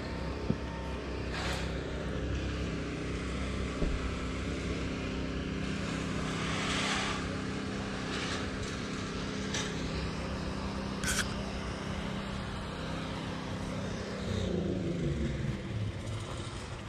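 A steady engine drone with a low hum, its pitch gliding down near the end, with a few light clicks over it.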